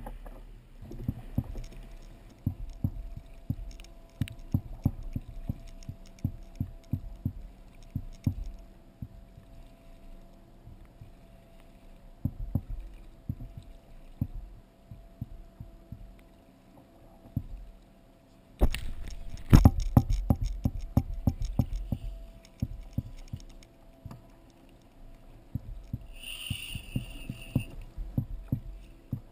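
Dull knocks and thumps of a plastic sit-on-top kayak and its gear rocking on choppy sea, with water slapping the hull, coming irregularly several times a second; a dense run of louder knocks comes about two-thirds of the way in.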